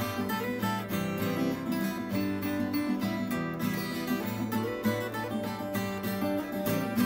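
Background music led by a strummed acoustic guitar, with a steady rhythm.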